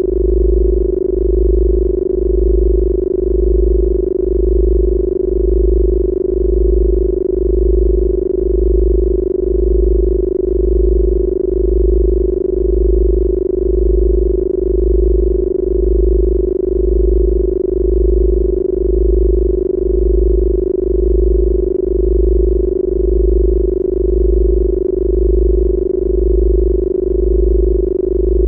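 Steady electronic tone held at one mid pitch, over a deep low hum that pulses about once a second: a synthesized Rife healing-frequency tone.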